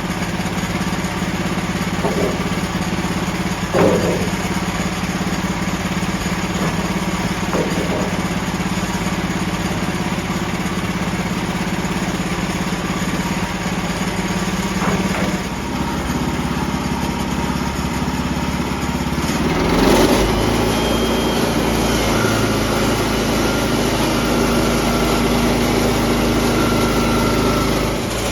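Gas-powered sawmill running steadily while it cuts boards into batten strips. Its engine note shifts about halfway through and again a few seconds later, with a brief louder surge, as the load changes.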